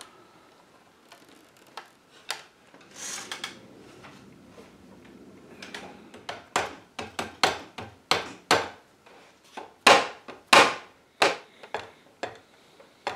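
A wooden armchair being handled and its arm worked loose from its joint. Quiet handling and a brief scrape come first, then a run of sharp wooden knocks over the second half, loudest near the end.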